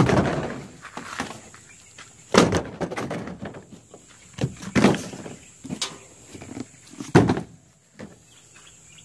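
Several separate thuds and knocks, the loudest about two and a half and seven seconds in, as plastic gallon oil jugs and a cardboard parts box are set down on a pickup's ribbed plastic bed liner.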